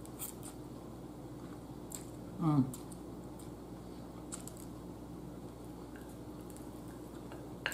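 A person eating stir-fry noodles with chopsticks: slurping and chewing, with a few light clicks. A short hummed "mmm" of enjoyment comes about two and a half seconds in.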